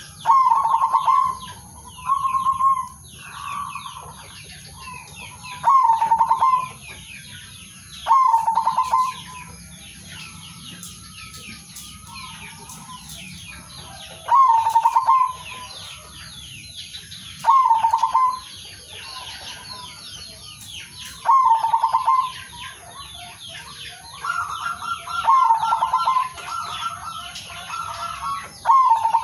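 Male zebra dove cooing: short, finely trilled coo phrases, each under a second, repeated about ten times every few seconds. Many small birds chirp high and fast throughout, and near the end a second, higher-pitched dove call overlaps the coos.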